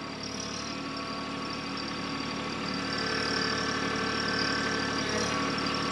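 A TYM compact tractor's diesel engine running steadily at low speed as it pulls a seed planter across tilled ground, growing a little louder about halfway through.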